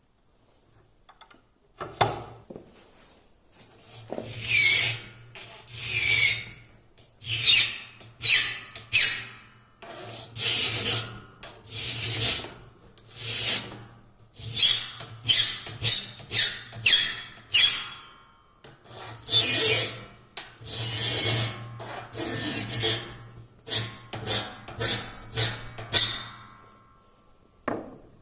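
Flat file rasping across the teeth of a Wood-Mizer bandsaw blade as it is sharpened by hand: a long series of separate strokes, roughly one a second and quicker in places. The strokes start about two seconds in and stop shortly before the end.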